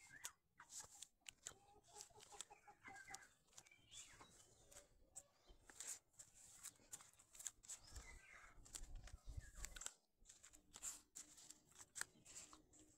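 Domestic hens clucking faintly in short runs, over scattered small clicks and crackles, with a brief low rumble about eight seconds in.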